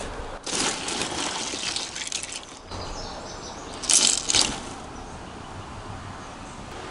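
A hand splashing through ice and meltwater among plastic water bottles in a cooler, with ice clinking. About four seconds in comes a louder splash as a handful of ice and water is scooped up. The ice is partly melted: a layer of ice is left on a good amount of water.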